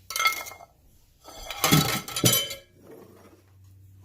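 Dishes and cutlery clinking and clattering: a short ringing clink at the start, then a louder clatter of knocks about a second and a half in.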